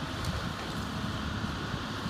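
Excavator's diesel engine running steadily while it works its arm, with wind buffeting the microphone.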